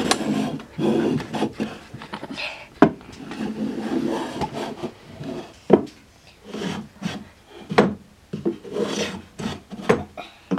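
Small hand plane pushed along the edge of a wooden board in repeated short strokes, its blade scraping and shaving the wood, with a few sharp knocks in between.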